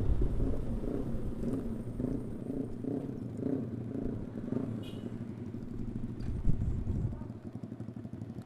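Motorcycle engine running, from the single-cylinder Yamaha R15 V3 sport bikes on the ride. It gets gradually quieter toward the end, with a low, uneven pulsing.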